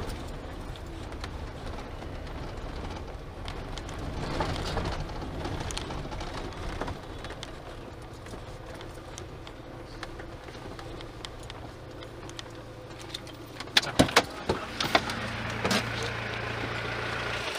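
SUV engine and road noise heard from inside the cabin as it drives slowly over a rough farm track, with a steady low hum. A few sharp knocks come near the end.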